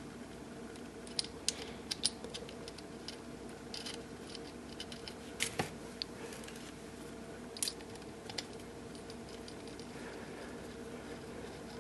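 Irregular small metal clicks and ticks of a screwdriver and screw as the screw holding the grinding disc is fitted back into a tungsten grinder's head, the sharpest click about five and a half seconds in, over a steady low hum.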